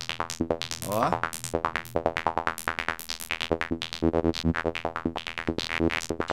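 Serum software synthesizer playing a fast psytrance sequence: rapid, evenly spaced short sixteenth-note plucks whose filter and level change from note to note, driven by several LFOs and a chaos modulator.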